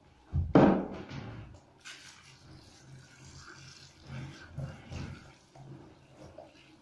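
Handheld shower spraying water steadily over a wet cat in a bathtub, starting about two seconds in. A loud sudden sound about half a second in, fading over a second, stands out above the spray.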